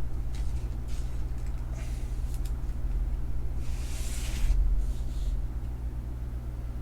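Trading cards being handled: a few brief rustles and slides, the loudest about four seconds in, over a steady low hum.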